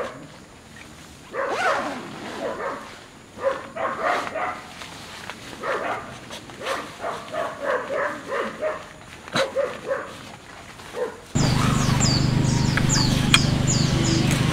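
Small dog barking in a long run of short, repeated barks. About eleven seconds in, this gives way abruptly to a louder steady hum with quick high chirps repeating over it.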